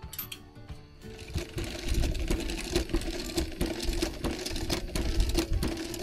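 Push-handle spin mop spinning in its bucket's wringer basket: a steady mechanical whirring and rattling that starts about a second in.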